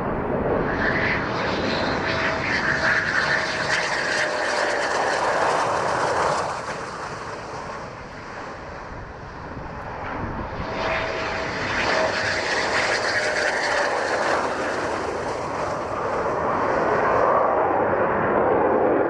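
Military jet aircraft passing one after another: a loud rush of jet noise lasting about six seconds, a dip, then a second pass of about the same length, and the noise building again near the end.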